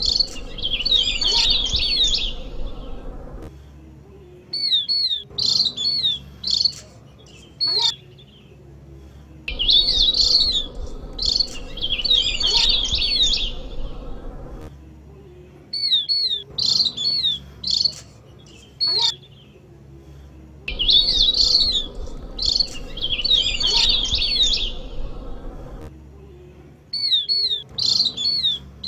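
Javan grey-throated white-eye (opior jawa) song played as a bird-lure call: loud bursts of fast, high twittering lasting several seconds, alternating with shorter clusters of sharp notes. The pattern repeats about every 11 seconds, like a loop.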